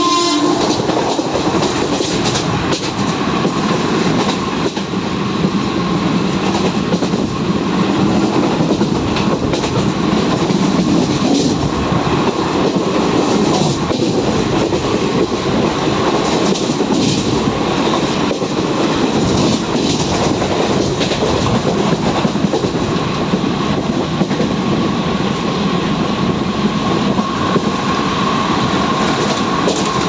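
Circar Express passenger coach running at full speed: a steady rumble and rush of wheels on rails with the clack of rail joints. The WAP4 locomotive's horn cuts off right at the start.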